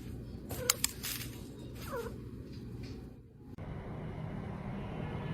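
Two sharp clicks, then a domestic cat gives one short meow about two seconds in. A steady low hum takes over near the end.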